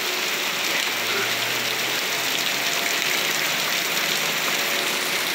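Torrential rain pouring down steadily, a dense even hiss of rain on the ground and standing water.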